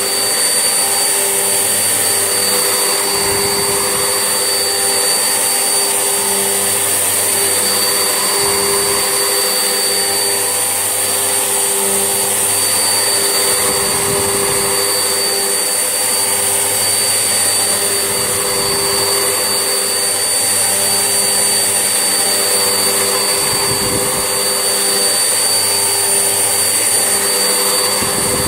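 Vax Essentials vacuum cleaner running steadily in use, a continuous motor hum with a thin high whine, and a low rumble that swells and fades about every five seconds.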